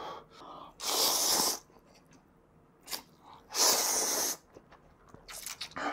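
A person slurping spicy instant ramyeon noodles from chopsticks, two loud slurps about three seconds apart, with faint chewing clicks between.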